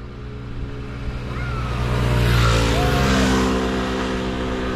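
Motor scooter engines approaching along the road, growing louder over the first couple of seconds, then the engine note drops in pitch about three seconds in and runs on steadily.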